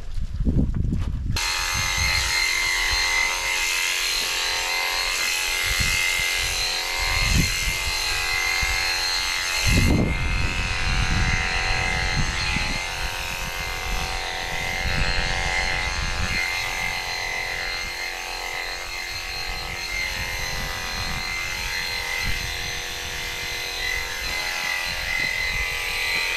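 Electric sheep-shearing handpiece running with a steady high whine as it clips leftover wool off a hogget, switched on about a second in. A few low thumps come from handling the sheep.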